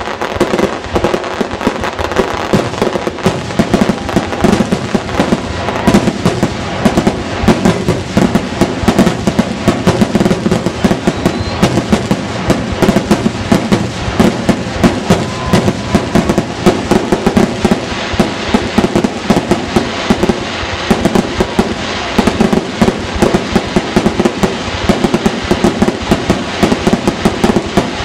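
Fireworks grand finale: a continuous barrage of aerial shell bursts, loud bangs several a second overlapping with crackle and rumble.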